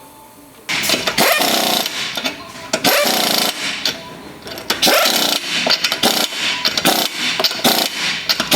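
Impact gun running in a series of short bursts of one to two seconds each, starting about a second in.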